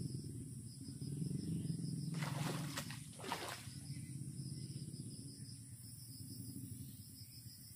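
A cast with a baitcasting rod: a swishing sweep of rod and line a little over two seconds in, then a short splash as the soft frog lure lands on the water about a second later. A steady low hum runs underneath.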